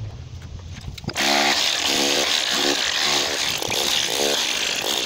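DeWalt SDS Plus hammer drill starting up about a second in and hammering a chisel bit into concrete and rubble. It makes a loud, dense clatter with a pitched ring that comes and goes several times as the bit bites.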